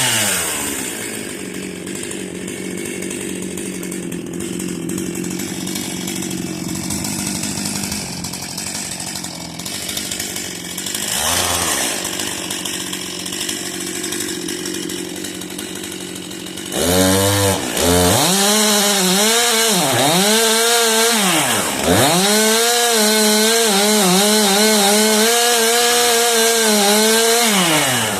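Stihl chainsaw's two-stroke engine running at low speed with one short blip of the throttle, then revved to full speed about two-thirds of the way in. While it is cutting wood, the pitch dips sharply several times as the chain takes load. It runs steadily at high revs and drops back to idle near the end.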